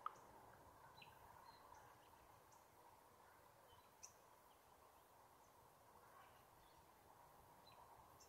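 Near silence: faint outdoor ambience with a few brief, faint bird chirps scattered through it and a couple of small clicks. No thunder is heard.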